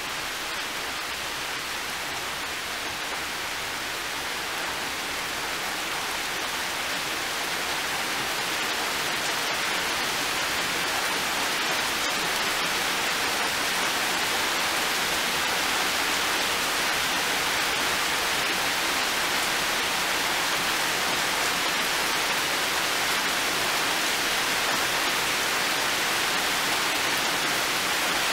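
Heavy rain pouring down in an even hiss, growing louder over the first ten seconds or so and then holding steady.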